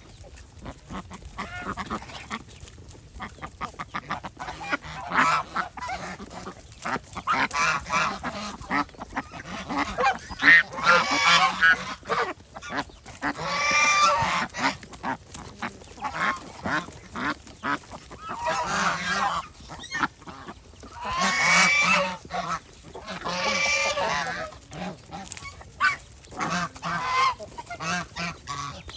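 A flock of large domestic geese honking. Many short calls overlap, with a few louder, longer honks standing out through the middle.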